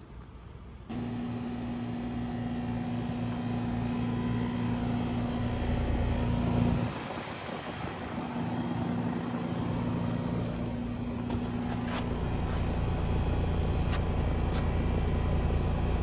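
Outdoor air-conditioner condensing unit running close by: a steady electrical hum from the compressor, with fan and rattling noise, that starts suddenly about a second in, dips briefly about seven seconds in, and then comes back with a heavier low rumble and a few light clicks near the end.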